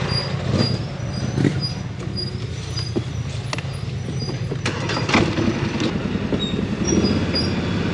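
ATV engine running at low speed on a rutted dirt trail, with several sharp knocks and rattles as the machine jolts over bumps.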